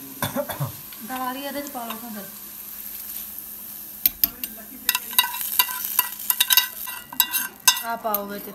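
Hot tadka (spiced oil tempering) sizzling as it goes into a steel bowl of moong dal. From about four seconds in, a metal spoon stirs it in with many quick, light clinks against the steel bowl.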